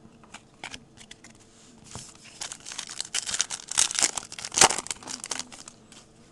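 Foil trading-card pack wrapper being opened and crumpled by hand. A few faint taps come first; the crinkling starts about two seconds in, is loudest about four and a half seconds in, and dies away shortly after.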